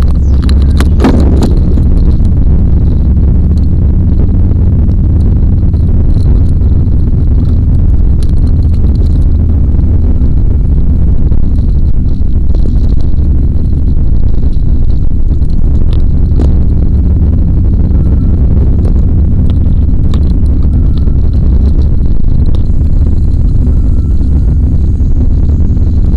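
Car's road noise inside the cabin, picked up by a dashcam: a steady, loud low rumble of engine and tyres at driving speed. There are a few knocks in the first second or so as the dashcam is moved.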